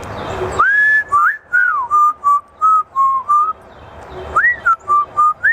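African grey parrot whistling a tune: a rising held note, a couple of swooping notes, then a run of short even notes, with the phrase starting again about four seconds in.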